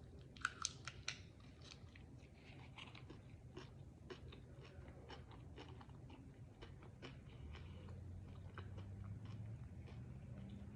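Faint close-up chewing of a Reese's chocolate-covered potato chip, a run of small crunches with a few sharper ones in the first second.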